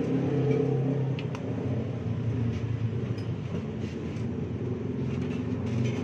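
A steady low mechanical hum of several held tones, with a few faint clicks.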